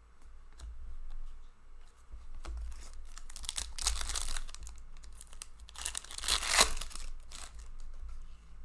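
Foil wrapper of an Upper Deck hockey card pack being torn open and crinkled, in two noisy rips, the louder one about six to seven seconds in. Small clicks of cards being handled come between.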